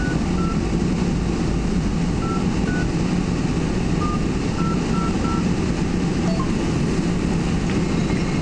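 Seoul Subway Line 2 train car running steadily on the elevated track, heard from inside the car as it pulls into a station: a constant low rumble. A few short high beeps sound now and then during the first half.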